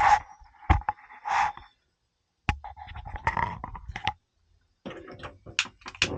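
Gas appliance in a motorhome being tested after a gas cylinder change: several sharp clicks and short bursts of hissing, some with a steady whistle-like tone, with pauses between them.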